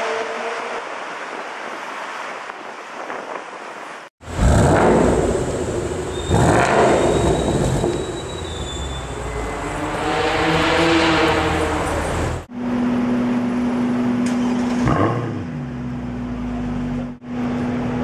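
Street traffic noise, then a Ford Mustang's engine revved three times, the last a longer rise and fall, then a car engine idling with a steady drone.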